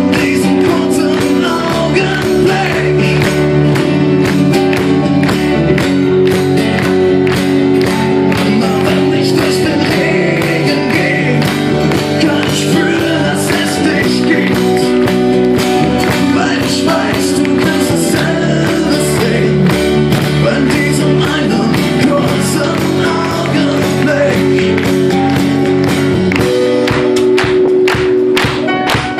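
Live acoustic band music: strummed acoustic guitars, acoustic bass, keyboard and a cajón with cymbal playing an instrumental passage of a pop-rock ballad, over a steady beat.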